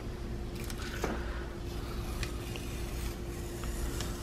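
Blue painter's tape being peeled off a painted window frame: faint crackling with a few small, sharp ticks over a steady low hum in the room.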